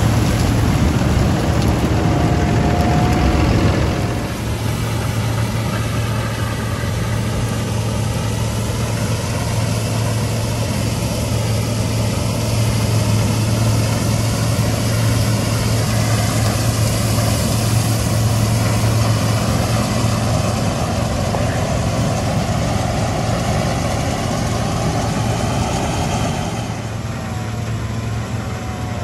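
New Holland CX8.90 combine harvester and a New Holland tractor running while the combine cuts and threshes rapeseed: a steady, heavy engine drone under broad machine noise. It is louder for the first four seconds and drops a little near the end.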